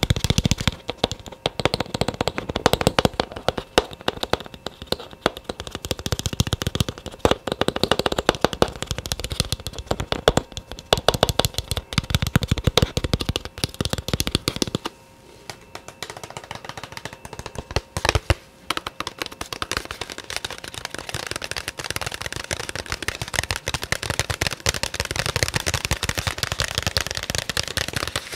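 Fast, dense ASMR tapping: many quick taps a second, with two brief lulls about halfway through.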